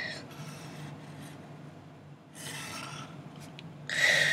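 Pencil scratching across a sheet of paper as lines are drawn. There are short strokes about two and a half seconds in and again near the end, and the last one is the loudest.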